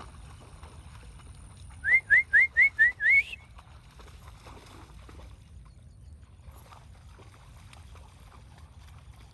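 A person whistling six quick rising notes, about four a second, the last one sliding highest: a whistle calling a dog back.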